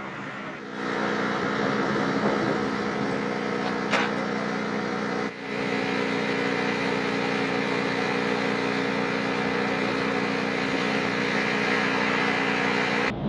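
Aircraft ground-support equipment engine running steadily with a droning hum, starting just under a second in, with a single sharp click about four seconds in.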